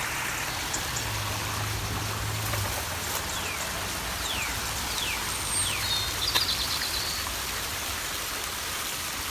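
Waterfall rushing: a steady, even hiss of falling water, with a few short high chirps over it in the middle.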